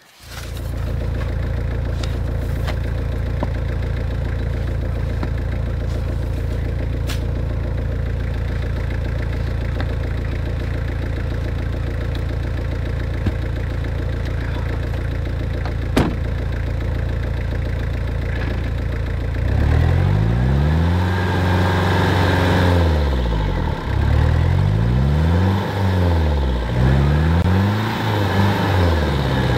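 1999 Jeep Cherokee XJ's 2.5-litre turbo-diesel engine idling steadily, then from about twenty seconds in revving up and down again and again as the Jeep tries to drive through deep, heavy snow.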